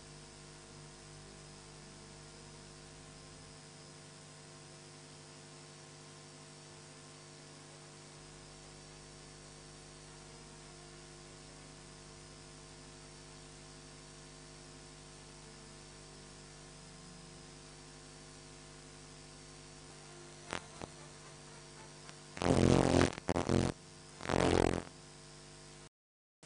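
Steady electrical hum and hiss from a sound system. About twenty seconds in there is a single click, followed by three loud, rough bursts of noise near the end.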